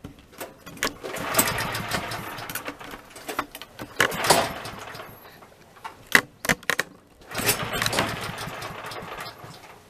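A Woodland HM122 sawmill's small gasoline engine being cranked to start. There are three short bursts of engine noise about three seconds apart, each dying away, with a few sharp clicks between them.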